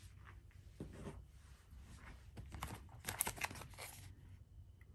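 Faint rustling and crinkling of knife packaging being handled, with a cluster of small sharp clicks and taps about three seconds in.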